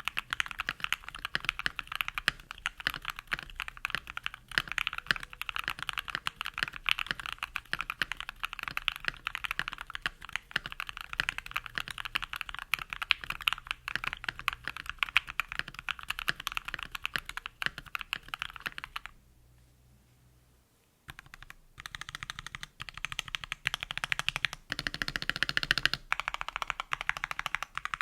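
Fast, continuous typing on a mechanical keyboard, key clicks in quick succession. The typing stops for about two seconds just after the two-thirds mark, then resumes.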